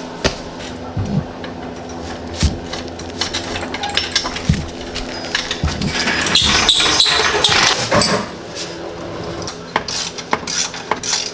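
Metal hand tools clinking and clattering in repeated sharp knocks, busiest about two-thirds of the way through, over a steady low hum.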